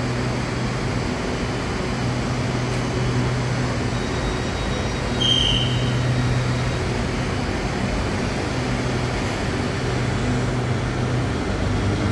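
SRT Red Line electric commuter train pulling out of an elevated station, a steady low hum with even rail and running noise. A brief high-pitched beep sounds about five seconds in.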